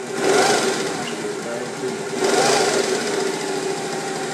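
Adler 1217 industrial sewing machine running steadily through a test seam after servicing, with its rapid stitching clatter over a steady motor hum. It picks up speed twice, just after the start and again about two seconds in.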